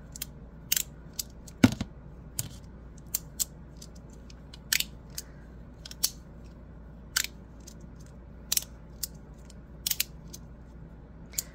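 Double-sided magnetic fidget slider clicking as its plates are slid and snap from one magnet position to the next while being laddered in the hand: sharp, irregular clicks, one or two a second, with one louder clack about two seconds in.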